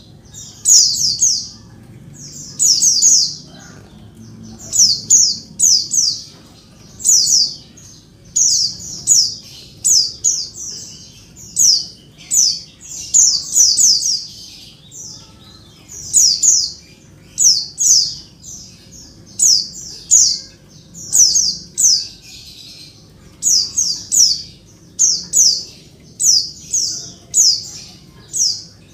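Female white-eye (pleci) calling noisily: quick clusters of two to four high, downward-sliding chip notes, about one cluster a second. This noisy female call is used as a lure to set male white-eyes calling and singing.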